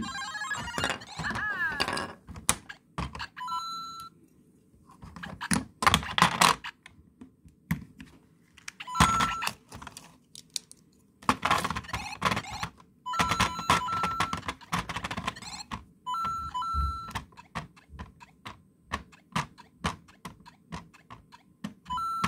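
Interactive LEGO Mario figure playing its electronic sound effects: short beeps and jingles that come and go in several bursts. Sharp plastic clicks and knocks run between them as the Tanooki suit and hat are pressed onto the figure.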